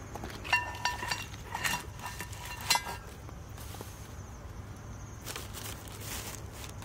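A cast-iron skillet clanking against a metal stand, a string of sharp knocks with short metallic rings in the first three seconds, then a wood campfire crackling.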